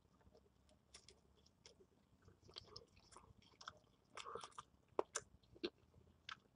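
A person chewing food with the mouth close by: faint, scattered soft clicks and crunches, sparse at first and more frequent in the second half.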